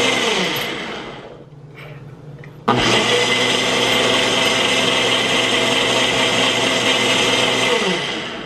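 Ninja Professional Plus blender motor blending a protein shake in its single-serve cup on the Auto-IQ smoothie program, running in timed bursts. It spins down with falling pitch about a second in and pauses. It starts again abruptly near the three-second mark, runs steadily, and spins down again near the end.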